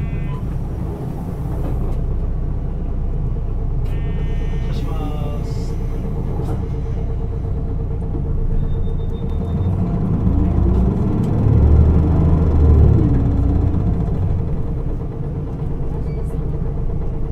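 Inside an Isuzu Erga city bus on the move: steady diesel engine and road rumble, with the air conditioning running. About ten seconds in, the engine note rises and then falls again over some three seconds as the rumble grows loudest.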